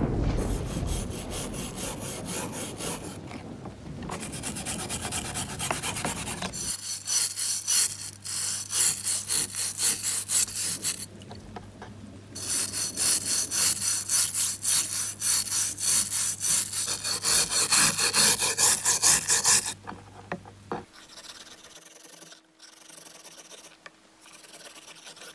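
Abrasive hand strokes rasping back and forth over a hard surface, about two a second, in several runs with short pauses between them; the strokes are quieter in the last few seconds.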